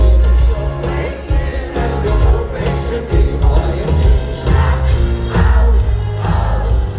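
Rock band playing live with a lead vocal over strong bass and drums, amplified through a stadium PA and heard from among the crowd.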